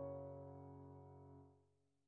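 Background piano music: a held chord rings on and slowly dies away, fading to silence near the end.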